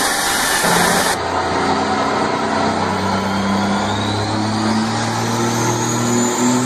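A car engine running fairly steadily, with a thin high whine that slowly rises in pitch. A loud hiss cuts off abruptly about a second in.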